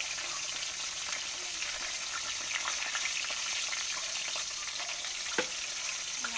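Strips of pork fat deep-frying in hot oil in an aluminium wok: a steady sizzle dotted with small crackles, and one sharper pop about five seconds in.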